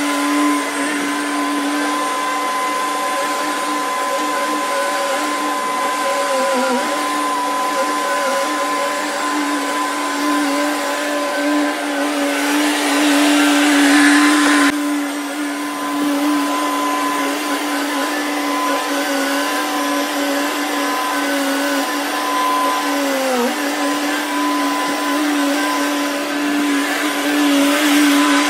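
Bobcat skid-steer loader's engine and hydraulics running hard with a steady high-pitched whine, the pitch sagging briefly twice as the machine takes load while digging.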